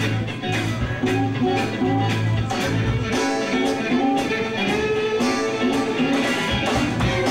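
Live band playing an instrumental passage with a steady beat: bowed fiddle over electric guitars. The sound is dubbed from an old VHS tape.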